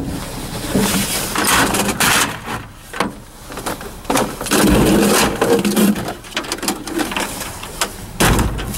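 Discarded electronics being moved around inside a steel dumpster: irregular scrapes, knocks and clatters of plastic cases and cables against each other and the metal floor, in several bursts.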